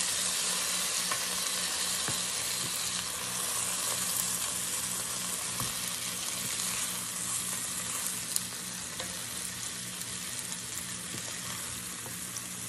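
Flour-dredged ground beef patties sizzling steadily in hot oil in a multi-cooker's searing pan, with scattered little pops. A wooden spatula scrapes and taps the pan now and then as the patties are turned over.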